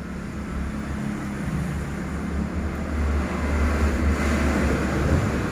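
A motor vehicle going by: a low rumble with rising hiss that builds, is loudest near the end, then eases off.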